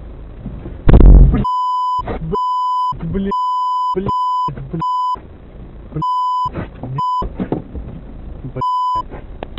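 A sudden heavy crash impact about a second in, then a run of about eight short censor bleeps. Each bleep is a steady 1 kHz beep that blanks out the original sound, covering swearing, with snatches of the original noisy audio between them.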